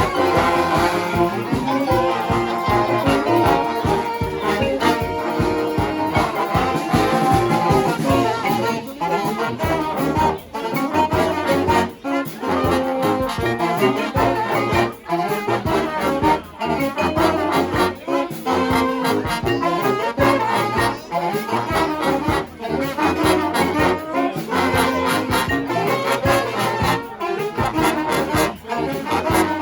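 Live brass band music from a trombone-heavy line-up of six trombones with a trumpet, playing full and steady to a regular beat.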